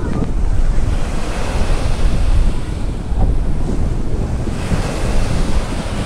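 Small waves breaking and washing up onto a sandy beach, a continuous surf hiss that swells about four and a half seconds in, under heavy wind buffeting on the phone's microphone.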